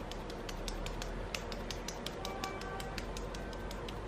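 Quick light taps of fingertips patting skincare into the face, about five or six a second and uneven, over soft background music.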